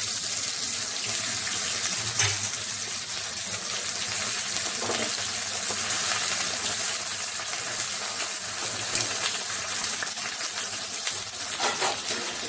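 Boiled cabbage wedges sizzling steadily in hot ghee in a metal kadai, with a couple of light knocks as more wedges are laid in and moved with a wooden spatula.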